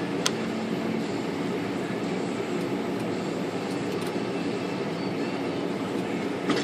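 Steady ventilation noise, with a faint click just after the start and another just before the end.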